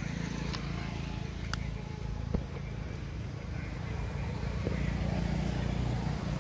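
A low steady mechanical hum, like a motor running, with a few faint clicks.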